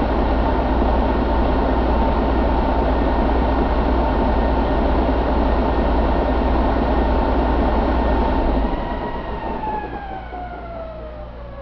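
2012 Detroit DD13 diesel engine running steadily with a high whine over it. About nine seconds in the engine shuts down: the running noise drops away and the whine glides down in pitch as it spins down.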